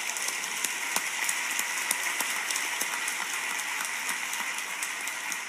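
Audience applauding: a steady patter of many hands clapping in an opera house, played back through a laptop's speakers.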